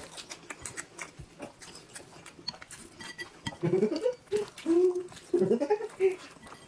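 Close-up eating sounds: small wet chewing clicks and chopstick taps. From about halfway in, several short muffled vocal sounds that bend up and down, like hums or whines.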